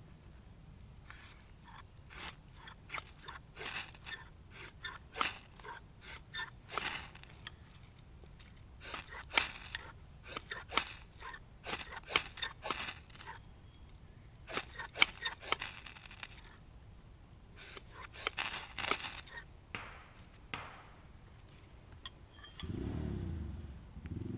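Irregular scraping, snipping and clicking of something being handled at close range, in clusters with short pauses between. Near the end a low steady hum starts.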